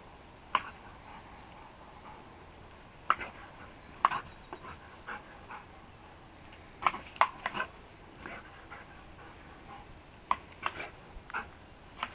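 Dog giving short, sharp play barks at irregular intervals, about a dozen in all and some in quick pairs, while playing at the water from a garden hose.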